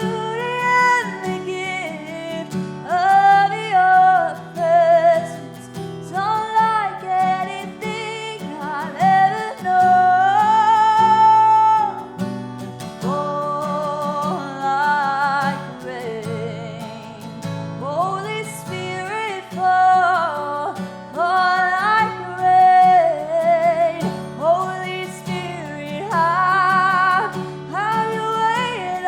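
Worship song: a voice singing a slow melody with long held notes over strummed acoustic guitar.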